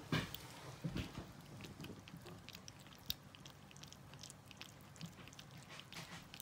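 Puppies lapping and slurping soft dog-food paste from a stainless steel bowl: many small wet clicks, with a few louder knocks near the start, about a second in and at about three seconds.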